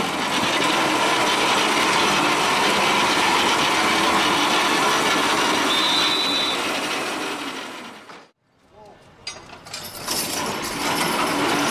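Horse-pull dynamometer truck being dragged by a team of draft horses: a steady, loud mechanical rattling and grinding from the machine. It cuts out about eight seconds in and starts again a second or two later.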